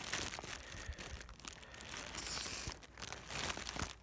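Rustling and scattered light clicks and knocks of handling, with no drill motor running.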